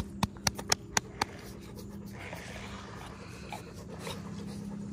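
A hand patting a pit bull's side: a run of quick, sharp pats, about four a second, that stops after about a second and a half, followed by a steady low hum.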